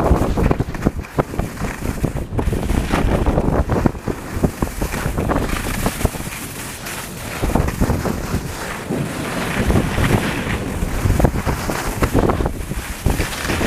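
Heavy wind buffeting the microphone of a camera carried at speed down a ski slope, a continuous rushing roar, with the irregular scraping and chatter of skis carving over hard-packed snow.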